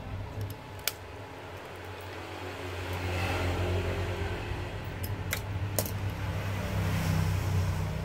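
A few sharp clicks and light taps from a small screwdriver and the plastic speaker housing and circuit board being handled: one about a second in, two close together a little past the middle. Under it runs a steady low hum.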